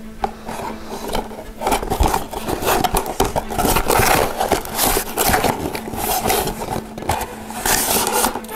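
Cardboard toy packaging being handled: repeated scraping, rubbing and rustling of the cardboard as a child tugs at and turns the box.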